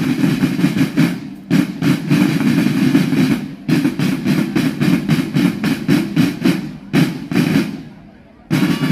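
Drum section of a drum and bugle band playing a cadence on field drums: rapid, dense stick strokes in phrases broken by brief pauses, with a longer lull about a second before the end before the drumming starts again.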